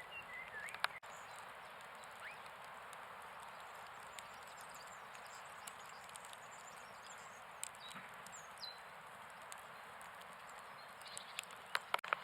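Faint steady background hiss with a few short whistle-like chirps. There are sharp clicks about a second in and a quick cluster of clicks near the end.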